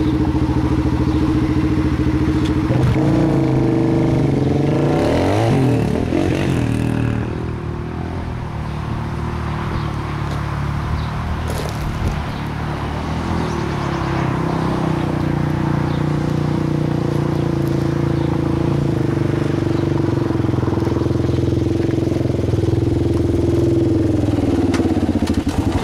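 Sport ATV (quad) engine running: steady at first, revved up and down a few seconds in, then held at a fairly even pitch. The pitch falls away near the end as the quad rides up against a brick wall.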